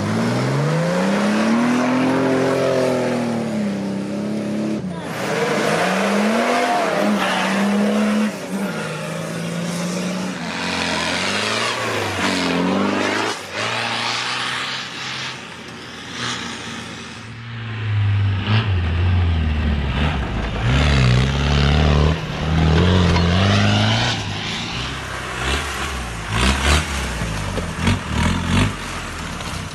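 Off-road 4x4 engines revving hard, their pitch rising and falling again and again as the vehicles accelerate and ease off over rough terrain; the engine note is deeper and heavier in the last third.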